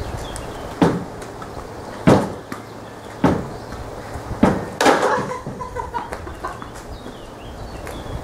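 A tennis ball hit back and forth with tennis rackets across a table tennis table: five sharp knocks of the ball striking the racket strings and bouncing on the table, roughly a second apart, the last two close together about five seconds in.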